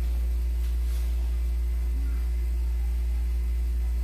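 A steady low hum at an even level with no change, most likely electrical hum picked up in the recording.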